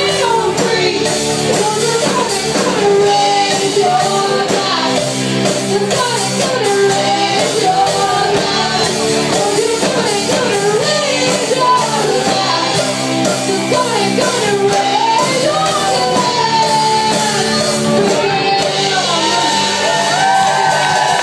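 Live rock band playing: electric guitar and drums under singing, with shouting.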